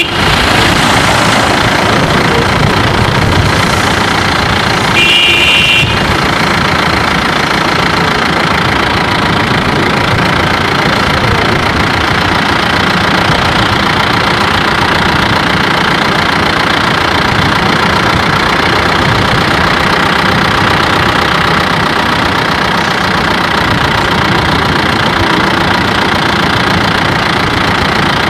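Steady engine and road noise of a vehicle driving along a paved road, with a short horn toot about five seconds in.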